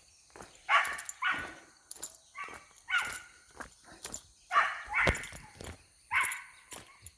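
A dog barking over and over in short, high-pitched barks with brief pauses between clusters. She is upset and angry at being left behind.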